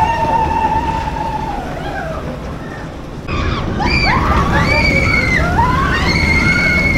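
People's voices in drawn-out calls that rise and fall, over a steady low rumble. The sound changes abruptly about three seconds in, after which there are several higher, gliding calls.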